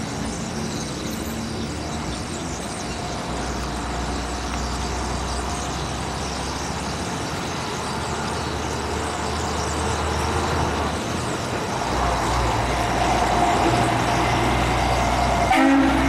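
The din of a huge flock of blackbirds massed in and around roost trees, over a steady low rumble of road traffic that grows louder in the second half.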